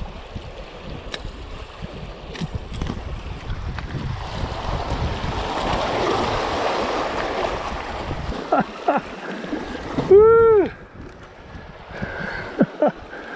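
Sea waves washing over a rock shelf while wind buffets the microphone, the wash swelling about halfway through. In the last few seconds several short pitched sounds rise and fall in pitch, the loudest about ten seconds in.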